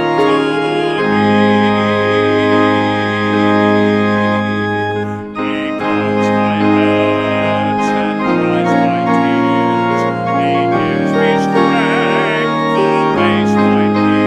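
Church organ playing a hymn in long held chords, with a short break about five seconds in.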